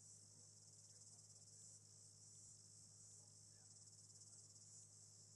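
Near silence: a faint, steady, high-pitched insect trill over a low hum.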